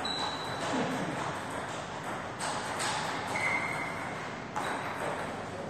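Table tennis ball clicking a few times as it is bounced and then struck for a serve near the end, with a couple of short high squeaks, over the steady noise of the hall.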